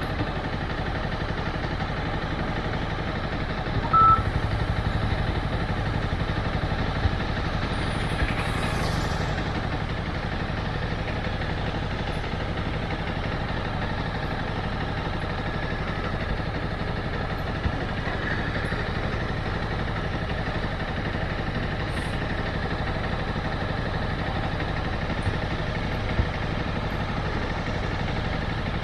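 Motorcycle engine running steadily, with a short loud beep about four seconds in.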